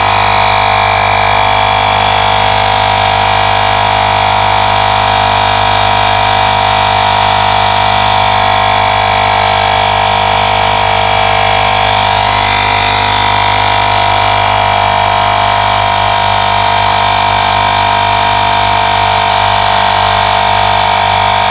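TEKGINE portable cordless tire inflator's small compressor running steadily under load, pumping up a car tire toward its preset 32 psi.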